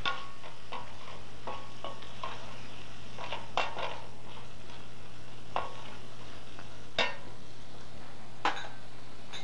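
A spoon clinking and scraping against a steel pan of sautéing vegetables as they are stirred, with a few louder single clinks spaced a second or more apart in the second half.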